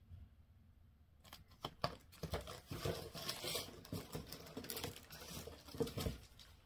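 Plastic-sleeved cross-stitch chart packets and their packaging rustling and crinkling as they are handled and sorted. It starts about a second in and carries on with many small clicks and taps.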